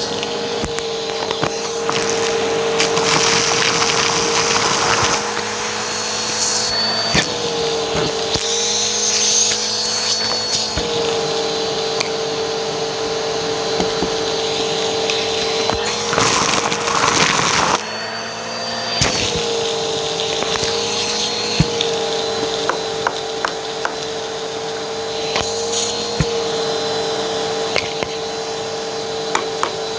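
Vacuum cleaner motor running steadily while its hose and crevice nozzle suck up a pile of small, hard, crunchy debris, which clicks and crackles as it rattles up the hose. The motor's pitch dips briefly a few times, and there is a louder burst of crackling about 16 to 18 seconds in.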